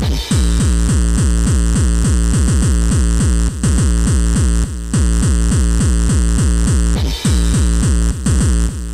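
Hardcore techno track: a fast, pounding kick drum at about three and a half beats a second under a harsh, noisy synth layer, the beat dropping out briefly a few times.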